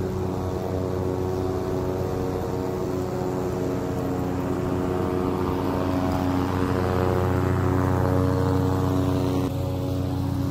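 Toro TimeCutter zero-turn mower's 22.5-horsepower engine running steadily as the mower drives past, growing louder as it comes closest and dropping a little about a second before the end.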